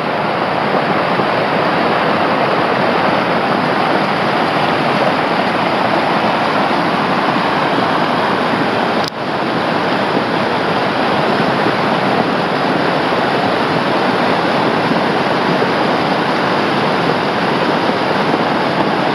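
Flash-flood water rushing down a rocky desert wash, a loud, steady rush with no let-up. There is a brief dip and click about nine seconds in.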